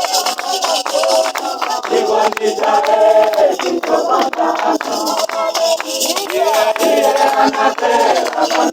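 A group of voices singing together in a church service, accompanied by frequent sharp percussive strokes keeping the rhythm.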